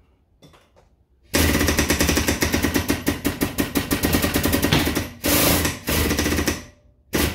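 Air-over-hydraulic pump on a 10-ton benchtop hydraulic press running with a rapid, loud mechanical chatter, driving the ram down to push a forming die through a steel panel. It chatters steadily for about three and a half seconds, pauses briefly, then runs again in shorter spurts.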